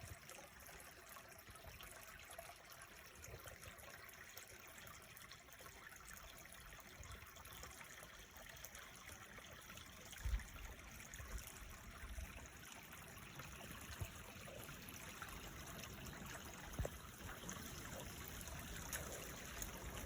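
Creek water trickling and running steadily over stones, faint, with a few soft low thumps, the strongest about ten seconds in.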